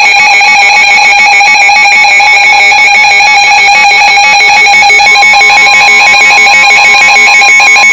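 Emergency Alert System alert tones from a NOAA Weather Radio broadcast: a loud, harsh, steady electronic tone held without a break, with a second tone joining about five seconds in.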